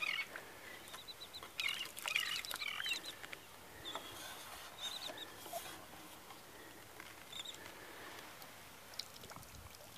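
Faint, high chirps from small birds in short runs every second or two, with a few soft knocks.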